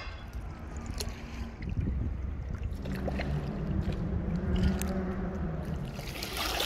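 Kayak paddling on a river: water lapping, gurgling and splashing around the hull and paddle, over a steady low rumble. A low hum runs through the middle, and the water noise turns brighter and splashier near the end.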